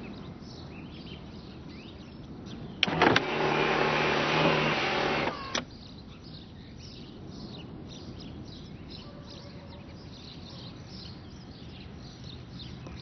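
A car's electric window motor runs for about two and a half seconds, starting and stopping with a click. Faint birdsong twitters throughout.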